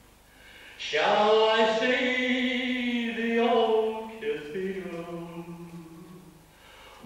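A man singing solo and unaccompanied into a handheld microphone, in slow, long held notes; the singing comes in about a second in.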